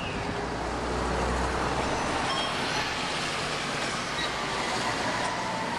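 Street traffic noise, with a motor vehicle going by on the road and a low engine rumble during the first couple of seconds.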